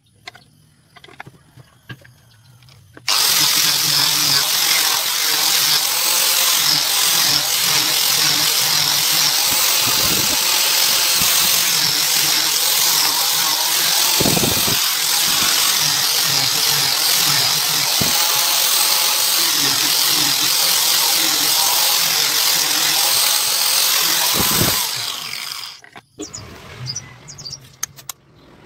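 Angle grinder with a sanding disc sanding a small wooden box smooth. It starts abruptly about three seconds in, runs loudly and evenly against the wood for about twenty seconds, then switches off and winds down.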